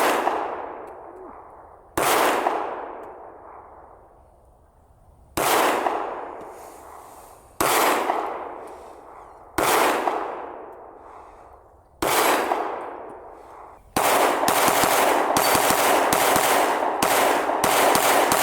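9mm Glock 43X pistol being fired: six single shots about two seconds apart, each followed by a long echoing decay, then a fast string of shots in the last four seconds or so.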